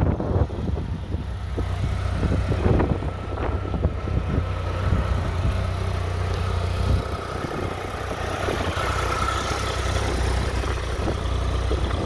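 Triumph Tiger 1200's inline-triple engine idling steadily through an Arrow aftermarket silencer, with some wind buffeting on the microphone in the first few seconds.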